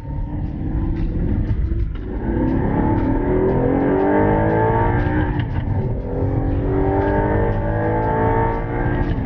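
Audi sports car engine accelerating hard, heard from inside the cabin. The revs climb in three pulls, dropping back at upshifts about two and six seconds in.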